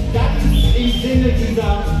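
Loud pop music with a singing voice and heavy bass, played through stage loudspeakers.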